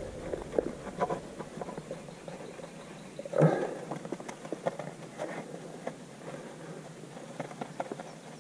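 A small hand brush scrubbing a wet, foam-covered chrome truck wheel in short strokes: irregular scratchy rubbing and light clicks and taps of the brush against the metal, with one louder short sound about three and a half seconds in.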